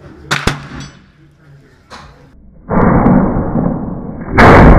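Matchlock musket firing a black-powder shot: one loud report near the end. Before it comes a loud steady rushing noise from about halfway, and a couple of sharp clicks sound in the first second.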